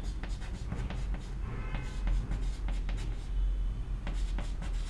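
Chalk writing on a chalkboard: a run of quick scratching and tapping strokes as letters are written, over a steady low hum.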